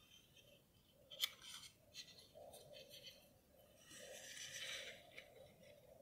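Faint rustling and crinkling of folded origami paper handled between the fingers, with a sharper tick about a second in and a longer crinkle near the end.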